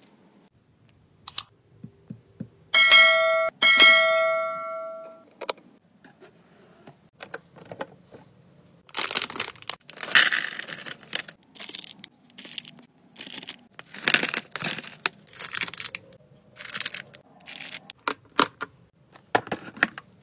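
A smart nightstand's touch panel gives an electronic chime twice about three seconds in, the second one fading out. From about nine seconds on, clear plastic organizer containers and wrapped candies rustle and click as they are handled in a drawer.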